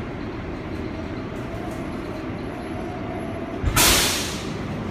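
R188 subway train running with a steady rumble as it pulls along the platform, then about four seconds in a loud, sudden hiss of air that fades within a second: the brakes venting as the train comes to its stop.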